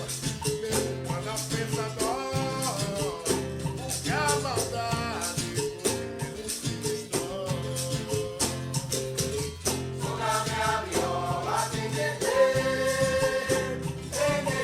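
Capoeira song: sung melody over a steady percussion rhythm with shaker-like rattles.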